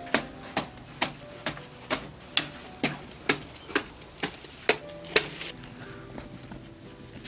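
A hand tool striking hard clay in a steady rhythm, about two strikes a second, stopping about five seconds in.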